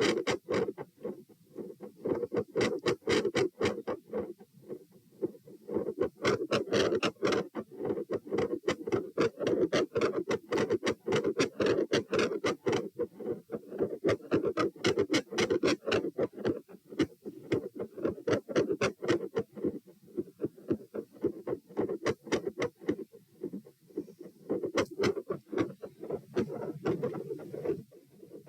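Heart sounds heard through a stethoscope at position P, beating fast at about 120 beats per minute. The first and second heart sounds vary greatly in loudness, with short, much quieter stretches.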